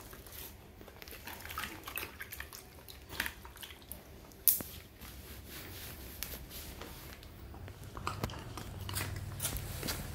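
Dog eating rice off a plastic lid: irregular chewing and mouth clicks, with one sharper click about four and a half seconds in.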